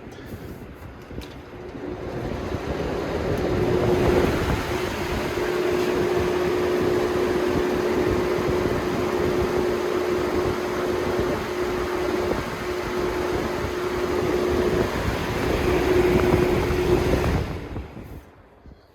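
Two Holmes HABF-20 box fans running on high: a steady rush of air with a steady hum under it. The sound builds over the first few seconds and dies away near the end.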